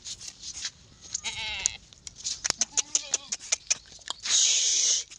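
Young Beetal goat bleating: a quavering call about a second in and a shorter one around three seconds, among a run of sharp clicks. Near the end comes a loud, half-second rush of noise.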